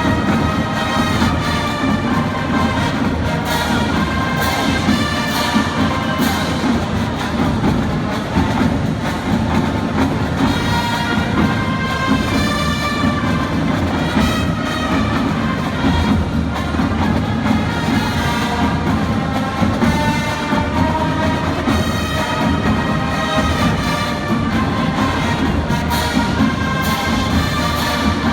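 A band playing loudly: a brass section carrying the tune over drums and other percussion.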